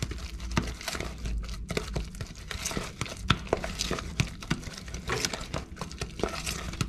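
Metal spoon stirring a thick batter of grated potato, carrot, onion, egg and flour in a plastic bowl: irregular clicks and scrapes of the spoon against the bowl.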